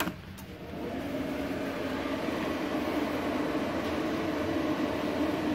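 An IGBT inverter welding machine (MMA 200 G-JB) is switched on with a click. Its cooling fan spins up over about a second, then runs steadily with a low hum.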